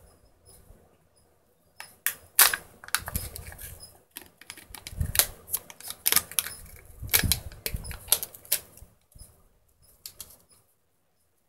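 Kinder Joy egg's foil seal and plastic toy wrapping crinkling and crackling as the toy half is unwrapped, with sharp clicks of the plastic capsule and toy parts being handled. The crackling comes in irregular runs and dies away about three-quarters of the way through.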